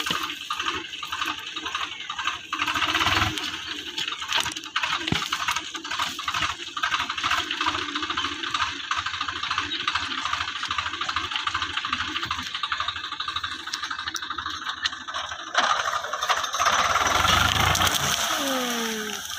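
Swaraj tractor's diesel engine working, with a steady rattle of repeated clicks. It grows louder about two-thirds of the way through, then eases off near the end.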